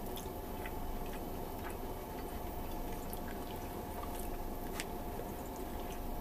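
A person eating by hand and chewing: a few faint, scattered wet clicks and smacks over a steady background hum.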